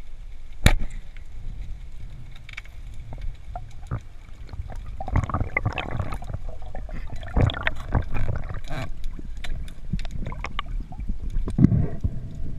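Underwater sound of a spearfisher among rocks: a single sharp, loud click about a second in, then a run of irregular knocks, scrapes and bubbling as gear and hands move against the boulders.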